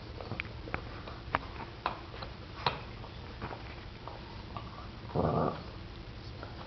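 Boston terriers at a chew bone: light scattered clicks in the first few seconds, then a little after five seconds one short growl from the older dog, guarding its bone from the puppy.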